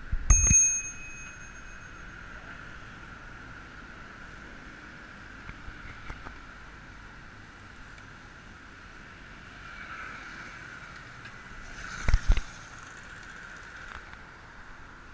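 Bicycle bell struck once just after the start, a single ding that rings on for about a second, with a thump from the bike at the same moment. Steady ride noise follows, and about twelve seconds in the bike jolts twice with heavy thumps.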